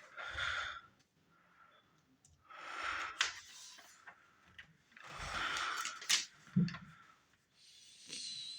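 Glossy magazine pages being turned and handled: paper rustling with sharp crinkles, three times, with quiet gaps between.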